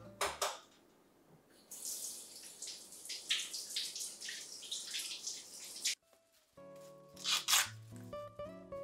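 Kitchen tap running water into the sink for about four seconds, splashing in the basin. Then, over background music, two brief tearing rustles of fresh corn husks being peeled back.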